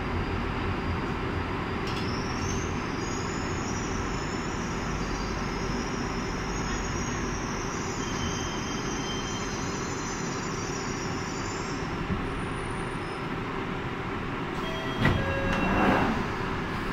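Northern line 1995 Stock tube train heard from inside the carriage as it slows into a station: a steady rumble with a high-pitched whine from about two seconds in until about twelve seconds in. Near the end the doors slide open with a clunk.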